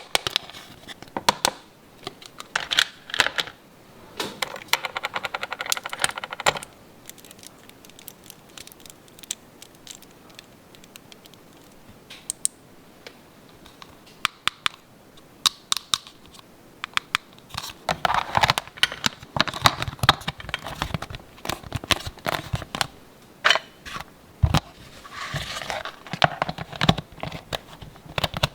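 Small plastic toy pieces being handled: irregular light clicks and taps, with several bursts of crinkling plastic packaging.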